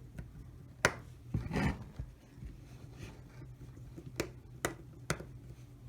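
A few sharp small clicks and a brief scrape as small plastic and metal parts of a model locomotive's motor are handled and fitted.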